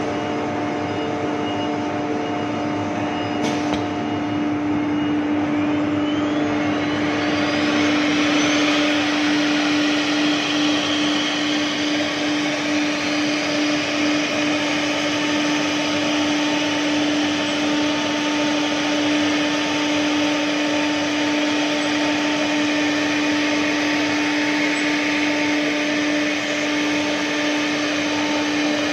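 CNC router cutting MDF: a steady spindle whine over a continuous rushing noise of the cut, with a rising whine about six to eight seconds in.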